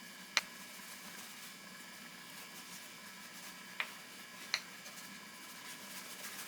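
Three short, sharp clicks, one near the start and two close together a little past halfway, over a faint steady background hum.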